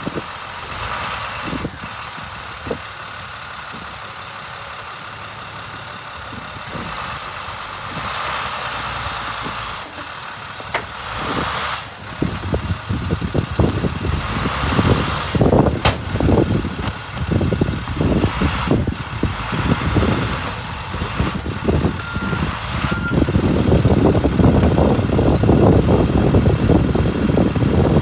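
A vehicle engine running, with knocks and rattles that grow busier from about halfway through and a low rumble that builds near the end.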